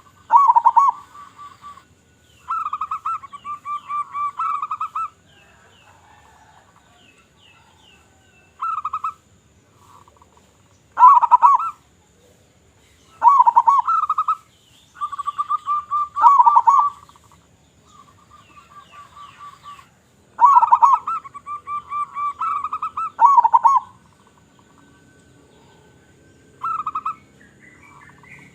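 Local zebra doves (perkutut) cooing: repeated phrases of rapid, trilled coos, some lasting a few seconds, broken by pauses, with fainter higher chirps over them.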